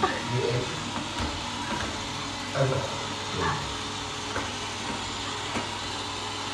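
Robot vacuum cleaner running with a steady whirring hum and hiss, with a few brief, faint sounds over it.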